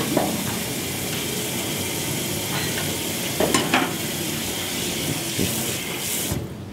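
A steady hiss, with a couple of light clinks about halfway through; the hiss stops suddenly near the end.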